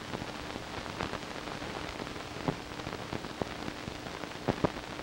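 Old optical film soundtrack noise: an even hiss with scattered crackles and pops, and a faint steady hum underneath.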